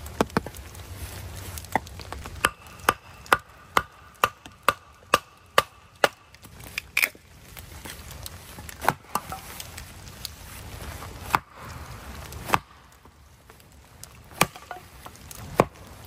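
Firewood being chopped and split into smaller kindling pieces: sharp wooden chopping strokes, about two a second for a few seconds, then single scattered blows.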